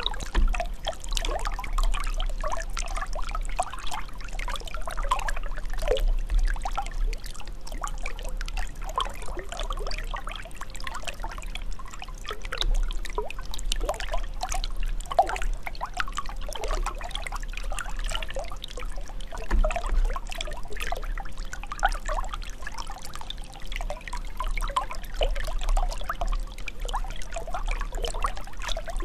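Running water pouring and gurgling, full of quick bubbling blips, over a low steady rumble.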